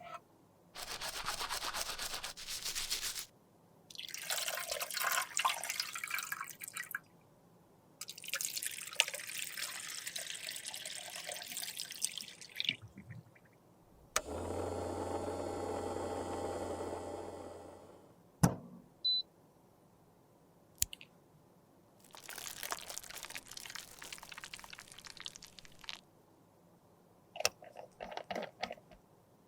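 Close-up sounds of liquid foundation being handled: several separate stretches of liquid pouring and stirring with short quiet gaps between them. Around the middle there are a few seconds of steady whirring with a low hum, and one sharp click follows.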